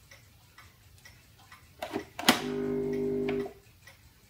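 A click, then a Nescafé Dolce Gusto capsule coffee machine's vibration pump buzzing for about a second before it cuts off suddenly. The pump runs but no coffee comes out: the machine is faulty.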